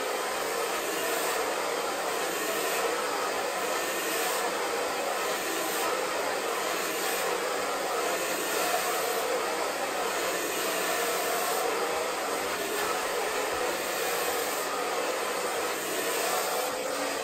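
Hand-held hair dryer running at a steady pitch, blowing hot air onto hair being dried straight over a round brush. It comes on suddenly at the start.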